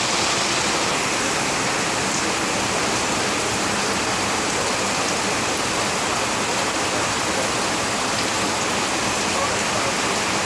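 Rain falling steadily, a dense, even hiss with no breaks.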